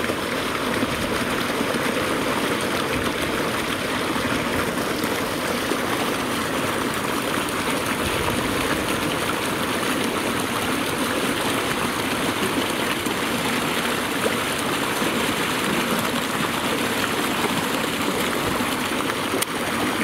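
Steady rush of water flowing in a narrow irrigation channel.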